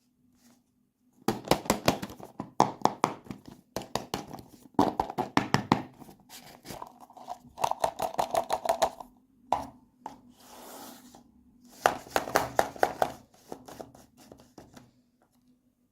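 Toy packaging being handled and torn open by hand: rapid crackling and tearing in several bursts, with a softer hiss in the middle.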